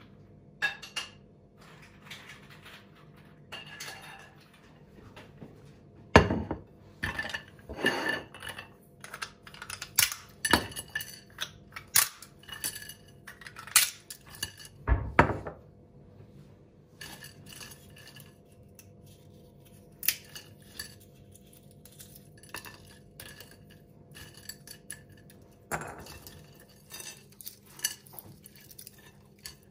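Dishes and cutlery clinking and knocking as they are handled, in an irregular run of sharp clinks with short ringing. Two heavier knocks come about six seconds in and again about fifteen seconds in. A faint steady hum sits underneath.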